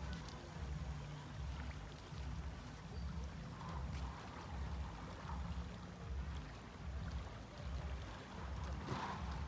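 Footsteps on the wooden plank deck of a suspension footbridge, low thuds at an even walking pace of nearly two steps a second, over a faint steady hiss.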